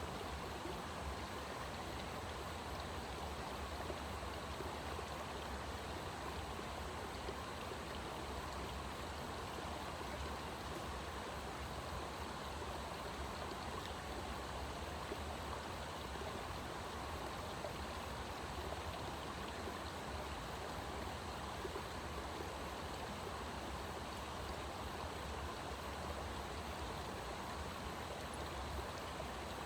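Steady rushing of running water, even and unbroken, with no distinct events.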